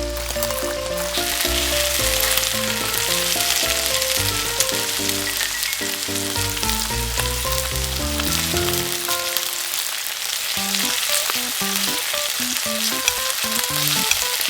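Garlic sizzling in hot cooking oil in a miniature frying pan, a steady hiss that grows stronger about a second in. A light background melody of stepping notes plays over it.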